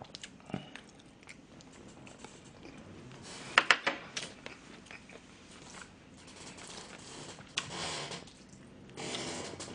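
Close-miked eating sounds: chewing a mouthful of fried rice, with a quick cluster of sharp clicks about three and a half seconds in. Near the end come short wet noises as black-bean-sauce noodles are worked and lifted with chopsticks.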